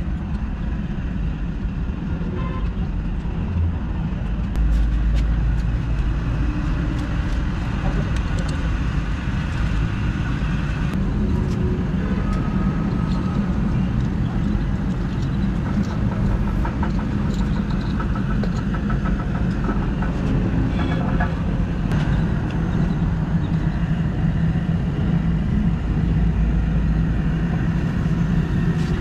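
Steady low rumble, like a running motor or passing traffic, with a few faint clicks from handling the work.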